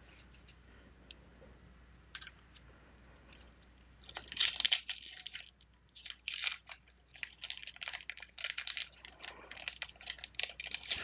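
Paper wax-pack wrapper of a 1991 Fleer basketball card pack being torn open and crinkled by hand: a few faint clicks at first, then from about four seconds in a run of loud, irregular crackling rustles.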